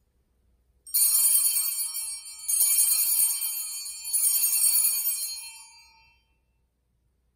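Altar bells (Sanctus bells) rung in three bright jingling peals, each left to ring on, fading out after the third: the signal for the elevation of the consecrated host.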